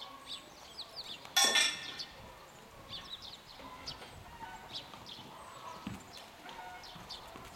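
Small birds chirping in short, falling chirps, repeated all through. About a second and a half in, a brief loud noisy burst lasts about half a second.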